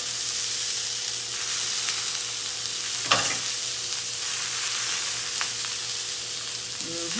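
Salmon fillet pan-frying in a stainless-steel skillet in a little oil: a steady sizzle. One sharp knock about three seconds in.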